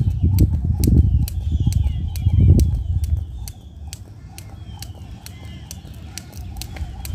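Skipping rope on concrete: the rope slaps the path and the jumper's feet land in a steady rhythm of about two a second, then it eases off a few seconds in. Birds chirp in the background.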